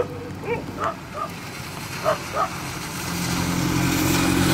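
A dog barks in short, sharp barks several times over the first two and a half seconds. Then a motor vehicle's engine hum grows louder from about three seconds in.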